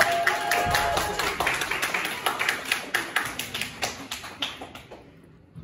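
A small group of people clapping their hands, the applause thinning and dying away after about four seconds.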